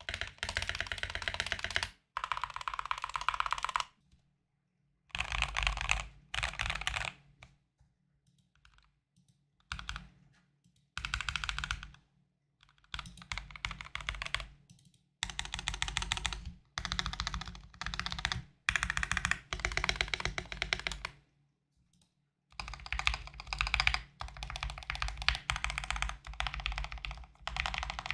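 Fast typing on a Drop CTRL mechanical keyboard with lubed Everglide Aqua King switches, in runs of a second or two broken by silent gaps. The first runs are the stock board; partway through, the keyboard has the tape mod, which is meant to take away the high-pitched clack on bottoming out.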